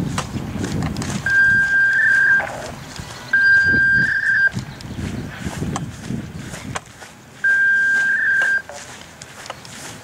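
Three steady electronic beeps at the same high pitch, each about a second long, the first two close together and the third after a longer gap. Under them is a low rumble that drops away about seven seconds in.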